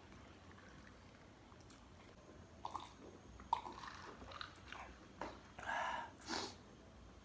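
Close-up bites and chewing of crispy fried food, starting about two and a half seconds in as a run of crunches and wet mouth noises.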